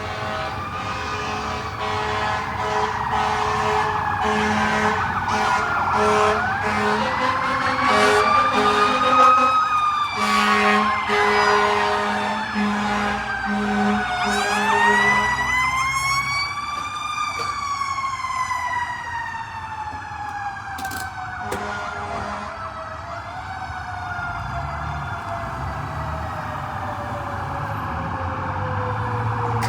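Fire truck sirens wailing, overlapping, the pitch rising and falling slowly, with a long slow fall through the second half. Air horn blasts sound several times in the first half.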